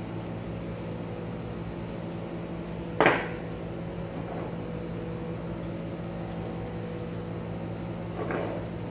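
Chrome-plated gate valve extension sleeve set down on a hard table: one sharp metallic clink with a short ring about three seconds in, and a softer knock near the end, over a steady low hum.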